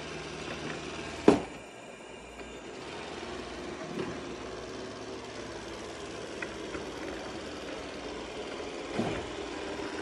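Shark IQ robot vacuum running, its suction motor and brushes giving a steady hum. A sharp, loud knock comes about a second in, and lighter knocks come about halfway and near the end.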